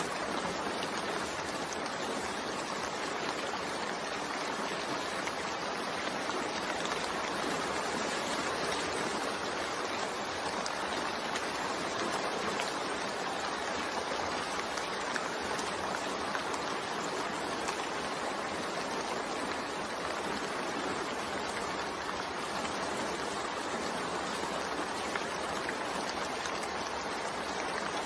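Steady rain sound, an even hiss with no separate drops or changes.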